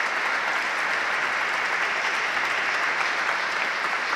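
An audience applauding, a steady even clapping that sets in suddenly just before and holds level.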